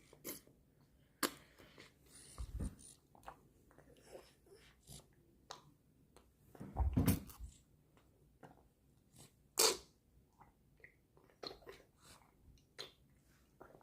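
A toddler drinking beef bone broth: scattered short mouth smacks and clicks, with a couple of heavier low gulps or knocks, about two and a half and seven seconds in.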